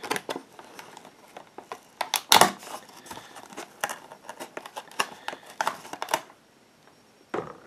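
Clear plastic blister-pack tray and foam insert being handled and pulled apart, giving irregular crinkling, crackling and clicking, loudest about two and a half seconds in. It dies down for about a second near the end before another crackle.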